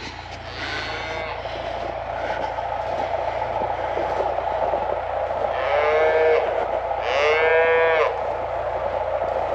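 Cattle mooing: two long, loud moos about six and seven seconds in, with fainter lowing earlier, over a steady background noise.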